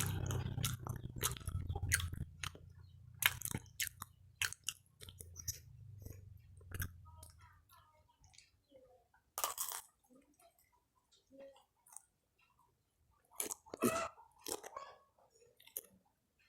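A person chewing and crunching fried snacks close to the microphone: irregular crisp crunches and smacks. A low hum fades out over the first several seconds.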